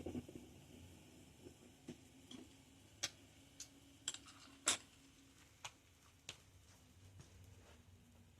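Scattered light clicks and taps at irregular intervals, the loudest about four and a half seconds in, over a faint steady hum.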